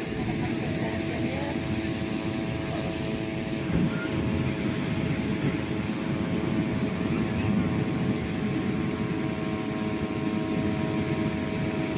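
Steady propeller drone of an aircraft overhead, holding an even pitch, over a constant rushing noise.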